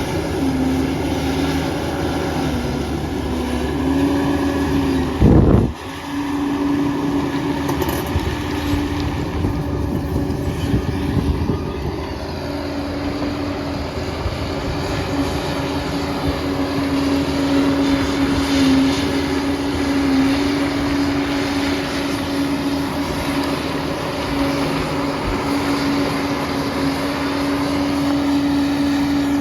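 Liebherr PR 746 crawler dozer running, its diesel engine and drive giving a steady mechanical hum with a constant whine. There is one loud low thump about five seconds in.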